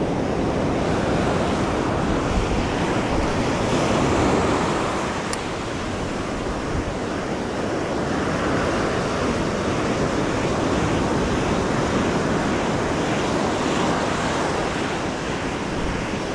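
Surf washing onto a beach in a steady rush of breaking waves, swelling a little about four seconds in, with wind buffeting the microphone.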